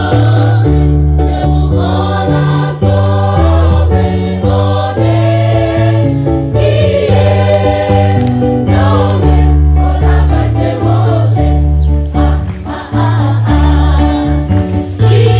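Choir singing a regional song of East Nusa Tenggara in several-part harmony, over a loud, deep bass line that moves to a new note every second or so.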